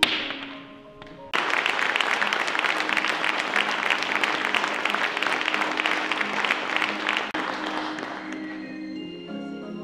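An audience applauding, starting suddenly about a second in and dying away over the last couple of seconds, with instrumental music playing steadily underneath.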